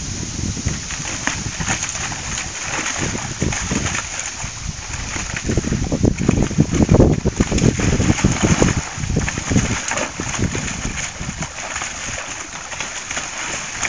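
A dog splashing and pawing at the water in a plastic wading pool, in quick uneven splashes that are heaviest in the middle stretch.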